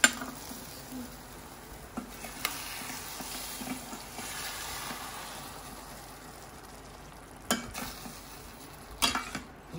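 Paneer gravy cooking in a stainless steel pan with a steady hiss, stirred with a metal ladle. A few sharp clinks of the ladle against the pan: the loudest comes right at the start and another near the end.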